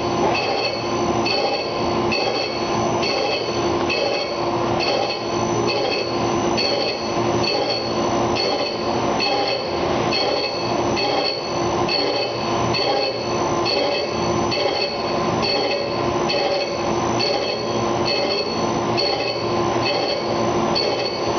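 Diamond dressing wheel grinding against a Borazon (CBN) wheel on a TruDress wheel dressing machine, truing the wheel face with light finishing infeed. A steady grinding noise with high squealing tones that swell and fade about twice a second as the traverse oscillates the wheel back and forth.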